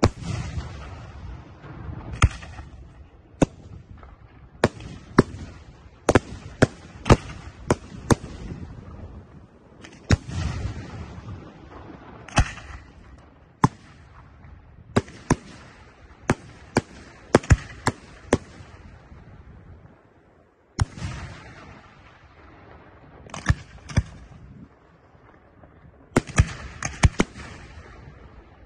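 Aerial fireworks display: an irregular string of sharp bangs from bursting shells, many of them close together. Some heavier booms trail a low rolling rumble, and a short lull about twenty seconds in ends with one of these.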